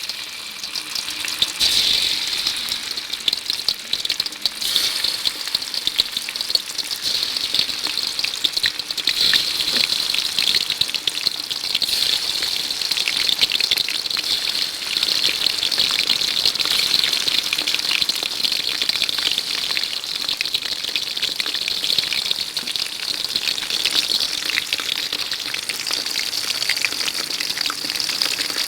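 Rice-flour-coated shrimp deep-frying in hot oil: a steady, dense crackling sizzle as they fry toward crisp.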